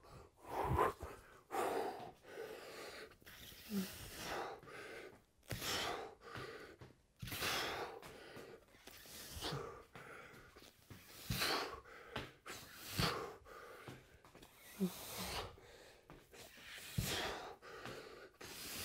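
A man breathing hard and fast under heavy exertion, with sharp, noisy breaths in and out about once a second.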